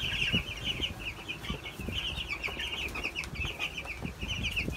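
A flock of 11-day-old broiler chicks peeping constantly, many short high calls overlapping into a steady chatter, with faint scattered taps underneath.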